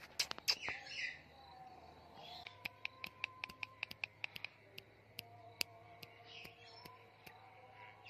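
Rose-ringed parakeet making soft chirps, with a rapid run of sharp clicks through the middle.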